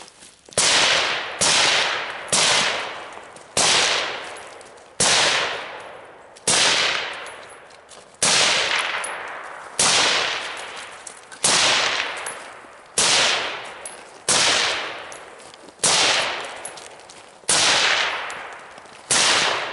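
Carbine shots fired one at a time in a steady cadence, about one every second and a half, some fourteen in all, each sharp crack trailing off slowly.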